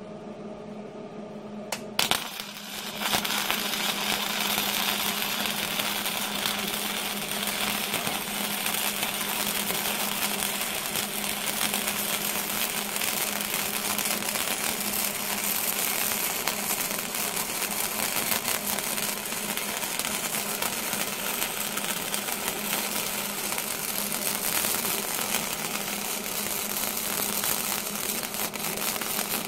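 Flux-core wire welding arc from a Hobart Handler 120 wire-feed welder, striking about two seconds in and then crackling and sizzling continuously as a steady weld bead is run. A steady hum sits underneath.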